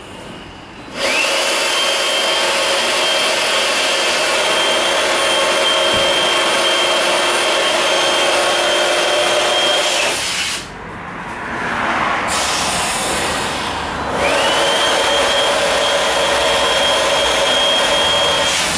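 Battery-powered handheld inflator pump blowing air into an inflatable tender's tube through its valve: its motor spins up to a steady high whine about a second in, cuts out a little past halfway, and spins up again about three-quarters of the way through. A softer rushing noise fills the gap.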